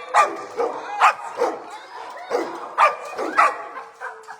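Dog barking repeatedly, about seven short, sharp barks at uneven intervals.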